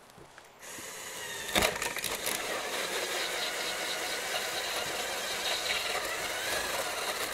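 Power drill boring through the fibreglass roof panel, the motor running steadily under load with the bit rasping through the material. It starts about half a second in, with a sharp knock about a second later.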